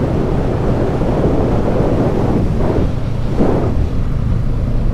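Wind rushing over the camera microphone while riding a 2019 Honda CB500X motorcycle, its parallel-twin engine running underneath as a steady low rumble.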